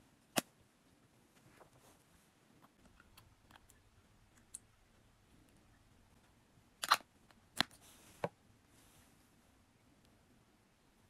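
Plastic clicks and taps from handling a small skincare bottle with a plastic cap: one sharp click about half a second in, faint ticks, then three sharp clicks about seven to eight seconds in.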